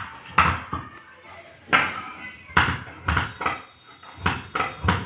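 Steel tailoring scissors snipping through chikan fabric: a crisp snip every half second to a second, about nine in all. The tight chikan weave cuts with some difficulty.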